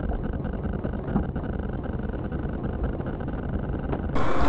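Steady low engine and tyre rumble of a car driving at road speed, heard from inside the cabin as a dashcam picks it up. About four seconds in it cuts abruptly to a louder, brighter road noise from another car.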